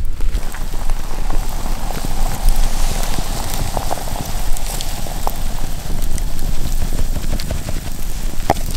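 Water bubbling at the boil in a soot-blackened kettle hung over an open wood fire, with scattered crackles from the burning logs, sharper near the end.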